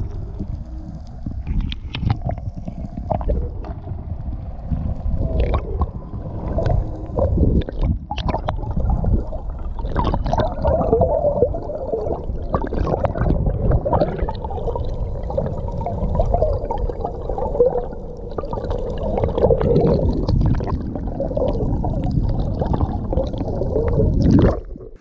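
Muffled underwater water noise: gurgling and sloshing around a camera held below the surface, with a constant low rumble and scattered knocks. It cuts off suddenly near the end.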